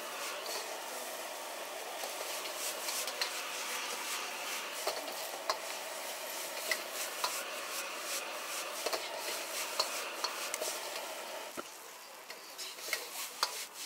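Rice noodles sizzling in a wok as they are stir-fried, metal tongs and a metal ladle scraping and clinking against the pan in many short sharp knocks. The sizzle eases a little near the end, where the clinks stand out most.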